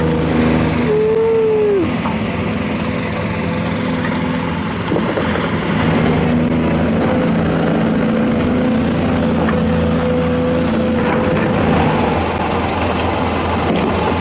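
Diesel engine of a hydraulic excavator running steadily under load as it digs and swings a bucket of limestone spoil, with a brief whine that rises and falls in pitch about a second in.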